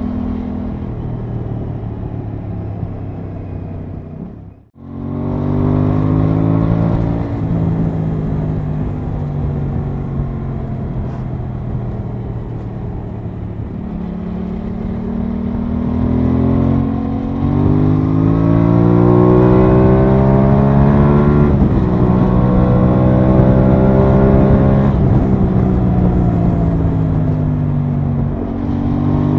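Aprilia Tuono 660's parallel-twin engine heard from on board while riding, its note rising and falling as the bike accelerates and eases off, over a steady rush of wind noise. The sound drops out for an instant about five seconds in.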